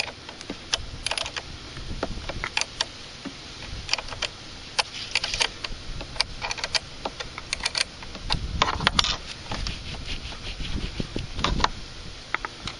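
Hand tools working a battery terminal connector: irregular sharp metallic clicks and clinks, with a few short rattling clusters, as the terminal clamp is loosened.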